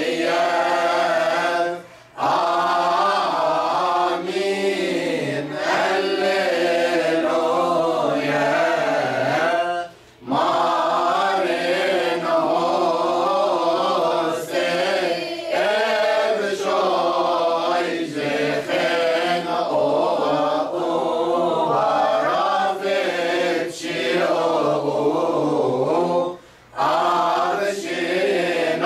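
Mixed group of men and women singing a Coptic church hymn together, unaccompanied, in long ornamented melodic phrases with brief pauses for breath about 2, 10 and 26 seconds in.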